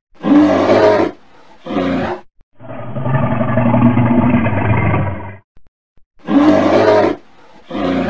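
Bear roaring and growling in a series of calls: a short roar and a shorter one, a long drawn-out roar of about three seconds, then the same pair of short roars again.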